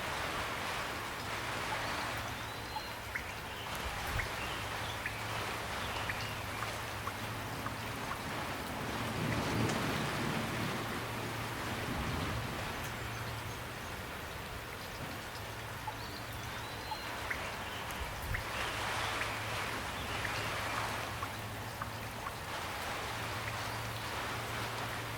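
Steady rain falling, with individual drops ticking close by throughout, and a low hum underneath that comes and goes.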